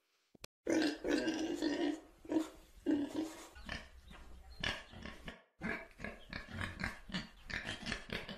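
Domestic pig making a long string of short grunts, starting just under a second in, with a brief break about five and a half seconds in.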